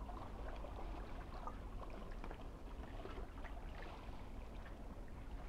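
Gentle sea water lapping and trickling against shoreline rocks, a soft hiss with many small irregular splashes, over a low steady rumble.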